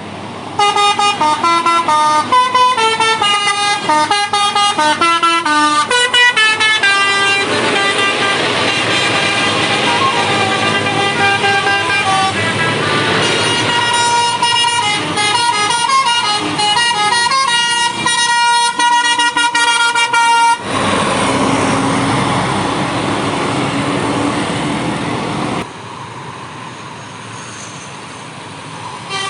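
A bus's basuri multi-tone air horn (telolet) playing a tune in quick stepped notes for about twenty seconds. It then gives way to about five seconds of steady engine and road noise, which drops to a lower level near the end.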